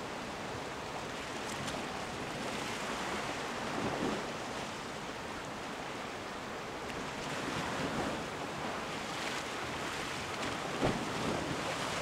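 Sea waves washing against rocks, with wind on the microphone, swelling and easing a little, and a single light knock near the end.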